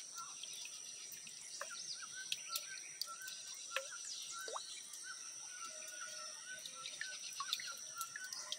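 Outdoor ambience: small birds chirping with short, quickly repeated notes over a steady, high-pitched insect drone.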